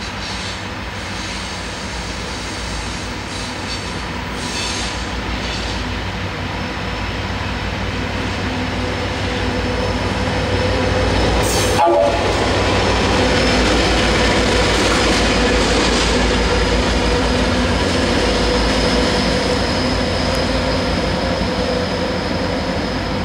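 A class diesel-electric locomotive A78 running light engine past, its engine running with a steady hum that grows louder as it approaches and stays loud as it goes by. A sharp click sounds just before the midpoint.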